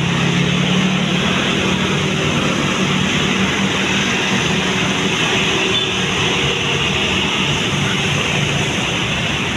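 Heavy road traffic, a bus driving past: a steady engine and tyre rumble with road hiss, the low rumble strongest at first and easing after a second or two.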